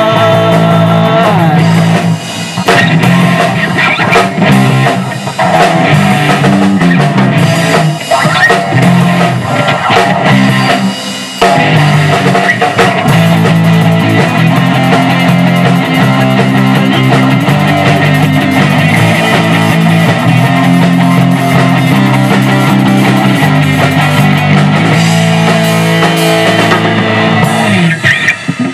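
Rock music with drum kit, bass and guitar playing an instrumental passage, no vocals, ending near the end.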